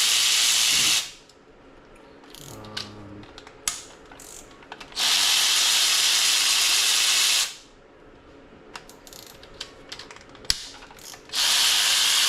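Power ratchet run in three bursts of two to three seconds, backing out bolts on an LS V8 engine being torn down, with light clicks and clinks of parts and tools in the gaps between bursts.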